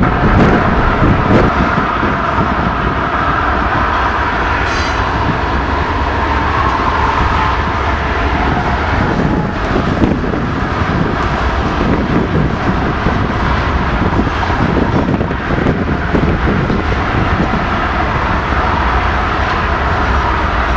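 Train rolling past: a steady rumble of wheels on rail, with scattered clicks and knocks.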